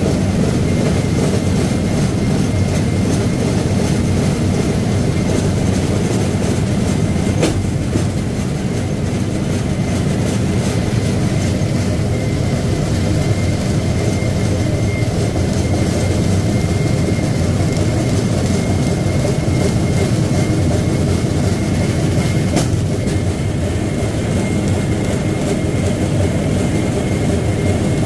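Steel wheels of a pedal rail bike rolling along the rails: a steady rumble with a faint high whine, and two sharp clicks, one about a quarter of the way in and one near the end.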